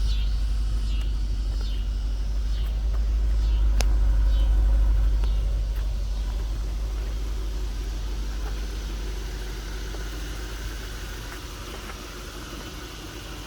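Lexus LS430's 4.3-litre V8 idling: a steady low rumble, with a sharp click about four seconds in. The sound grows a little louder around the middle, then fades steadily toward the end.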